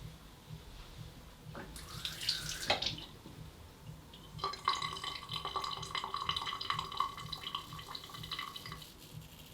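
Water running from a tap into a sink for about four seconds, with a steady ringing hiss, and then turned off near the end. It follows a shorter splash of water about two seconds in.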